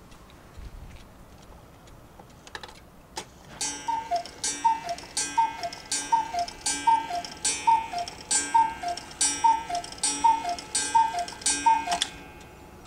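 Anton Schneider Black Forest cuckoo clock with a Regula 8-day movement striking twelve: a couple of clicks as the strike mechanism releases, then a steady run of about a dozen breathy two-note cuckoo calls, high then low, a little under one a second.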